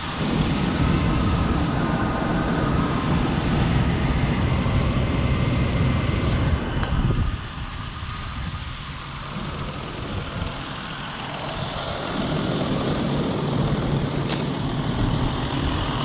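A four-litre SUV engine idling on petrol with the hood open, running rough with a misfire. The seller puts this down to the car standing unused for a year and a half. The sound drops for a few seconds about seven seconds in, then builds back up.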